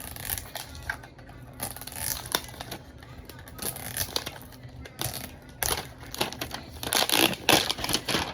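Plastic toy packaging crinkling and rustling as it is handled in irregular bursts, loudest near the end.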